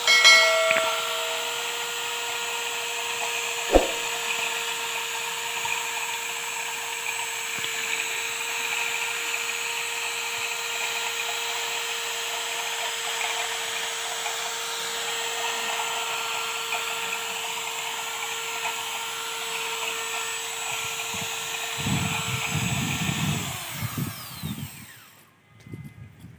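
Electric drill spinning a homemade grass-cutter disc, running with a steady whine at constant speed. Near the end there is a brief rumble, and then the drill winds down and stops.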